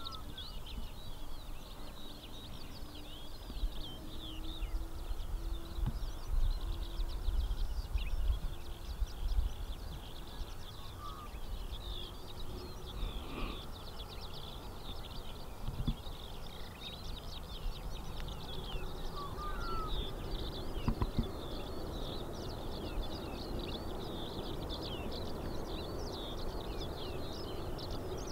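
Many small birds chirping rapidly and continuously over open grassland, with wind buffeting the microphone in gusts during the first third. Underneath is a faint low drone that grows a little toward the end, from the distant Boeing 747 freighter on the runway.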